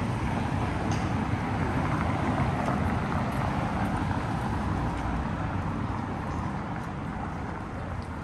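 City street noise dominated by a motor vehicle passing, its engine and tyre noise loudest a couple of seconds in and then slowly fading.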